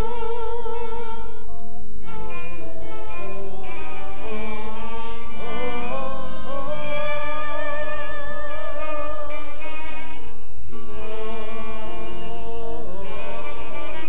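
Music: a melody of long, wavering held notes over a steady low pulse.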